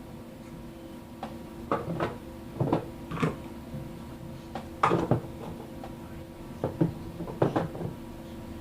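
Small plastic toy food pieces and the toy refrigerator knocking and clacking as items are put away, a string of irregular knocks with the loudest about five seconds in.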